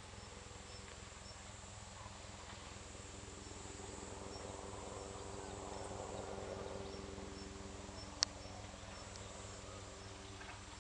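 Autumn reeds and marsh grass rustling in the wind, swelling softly in the middle, with an insect chirping high and evenly at a slow steady pace over it. One sharp click near the end.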